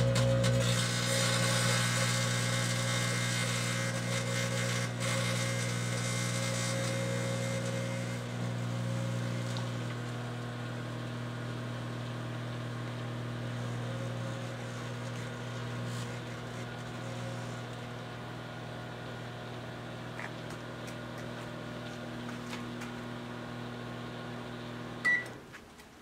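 Microwave oven running with light bulbs inside: a steady electrical hum, with a crackling, hissing buzz from the bulbs arcing and glowing for the first several seconds. Near the end a short beep sounds and the hum cuts off as the oven stops.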